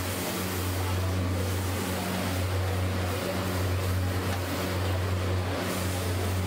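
Egg mixture sizzling on a large flat iron griddle (tawa) while a steel spatula spreads it, over a steady low hum.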